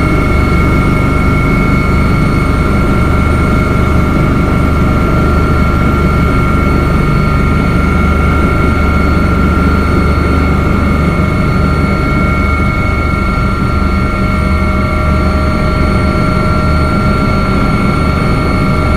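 Helicopter engine running steadily: a constant high whine over a low rumble.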